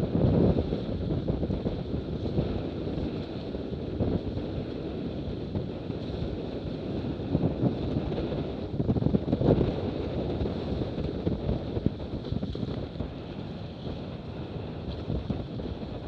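Wind buffeting the microphone over the rush of water along the hull of an F18 racing catamaran under sail. The rumble swells in gusts just after the start and again about nine seconds in.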